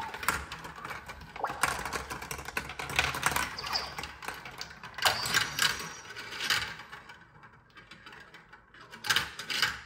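Ratcheting plastic clicking from the hand crank of a VTech Marble Rush corkscrew lift being turned, with marbles clattering on the plastic track pieces. The clatter thins out about seven seconds in, with a last burst of clicks near the end.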